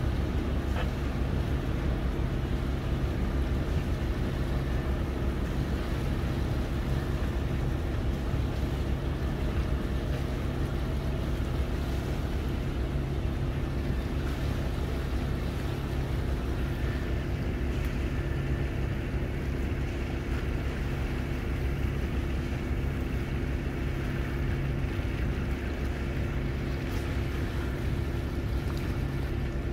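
Steady low engine drone with wind and water noise.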